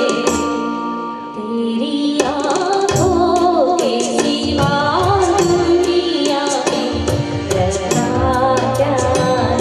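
A woman singing an Indian-style melody through a microphone, accompanied by an electronic keyboard playing chords and a steady hand-drum rhythm.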